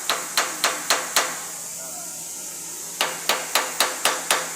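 Hammer blows on metal in two quick runs: five sharp knocks about four a second, a pause of nearly two seconds, then about seven more. The blows are tapping a compressor casing down over its stud bolts to drive out trapped air.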